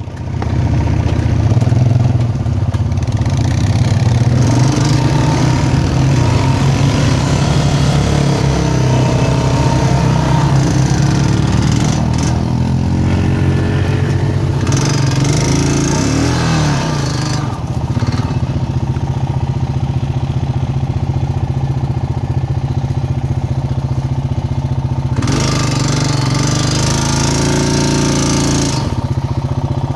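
Four-wheeler (ATV) engine running steadily at riding speed, heard close from the machine's own seat, its pitch rising and falling with the throttle about halfway through.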